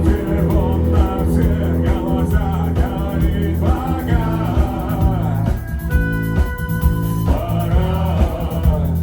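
Rock song played by a band, with a singer over guitar and a steady beat; about six seconds in, held notes briefly take over from the sung line.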